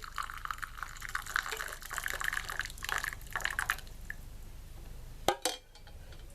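Hot shallot decoction poured from the pan through a strainer into a cup: a trickling, spattering pour for about four seconds. A single sharp knock follows about five seconds in.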